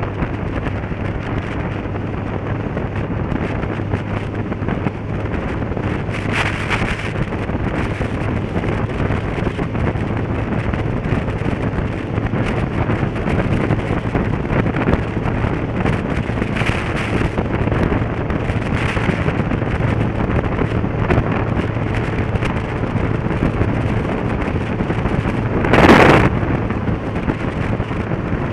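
Motorcycle on the move: wind rushing over the microphone with a steady engine hum and road noise underneath. A few brief louder gusts break in, the loudest a short burst near the end.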